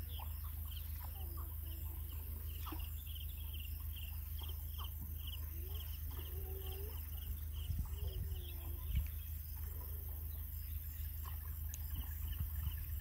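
Outdoor ambience: a high chirping pulses steadily about two or three times a second, and a few short drawn-out animal calls come in the middle, over a low steady rumble.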